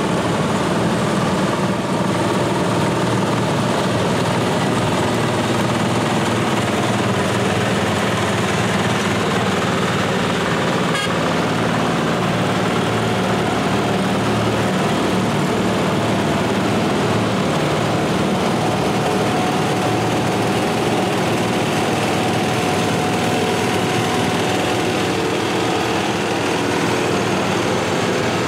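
Small garden tractor engines running steadily as a line of ride-on garden tractors drives slowly past, several engines sounding together.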